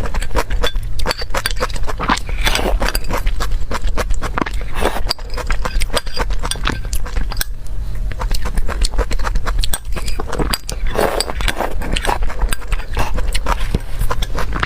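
Close-miked eating sounds of someone eating desserts: a dense run of wet clicks and smacks from chewing and the mouth, over a steady low hum.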